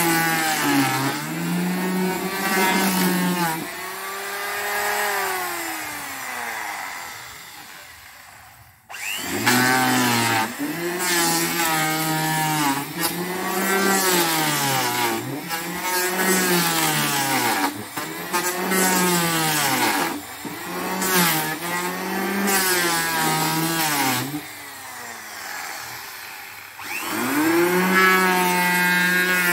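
Electric hand planer cutting along a wooden boat plank, its motor pitch dipping and recovering again and again as the blades bite into the wood on each pass. About a third of the way in, the motor winds down and stops, then starts again straight away. Near the end it slows once more before picking back up.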